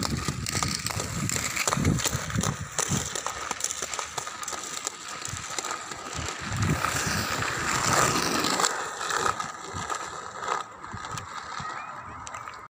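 Inline skate wheels rolling on rough asphalt: a steady rattling roar with scattered clicks and knocks, swelling a little about eight seconds in. The sound drops out briefly right at the end.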